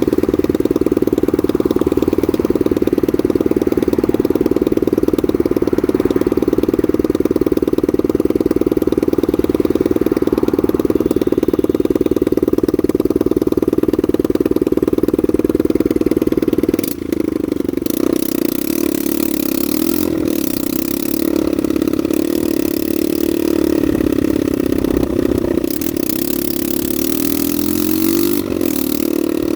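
Honda NSF100 single-cylinder engine running at a steady speed, then about two-thirds of the way through the note changes suddenly and starts rising and falling with the throttle, with added hiss and a few short breaks.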